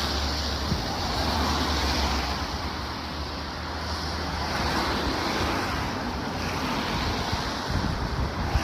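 Steady rushing noise with wind rumbling on the microphone, the rumble heaviest over the first couple of seconds.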